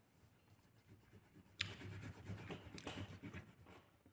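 Coloured pencil scratching faintly on paper as a small area of the drawing is shaded in. It starts about a second and a half in.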